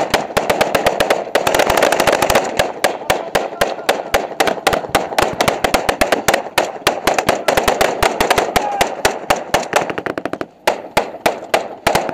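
Rapid gunfire from automatic weapons, with many sharp cracks a second in long strings and a short break about ten and a half seconds in.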